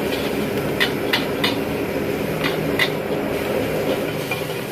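Metal spatula scraping and clanking against a wok as fried noodles are stir-fried, with about five sharp clanks in the first three seconds. Underneath runs the steady rush of the gas burner and the sizzling of the noodles.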